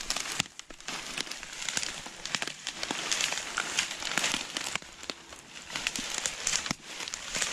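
Footsteps crunching through dry fallen cane leaves and stalks: an irregular, continuous crackling and rustling of brittle cane underfoot.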